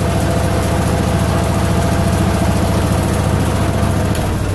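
Allis-Chalmers 712H garden tractor engine running steadily under load from the hydrostatic pump, which is circulating fresh oil through the transmission; the engine is bogging slightly because the pump is moving oil. Its note drops near the end.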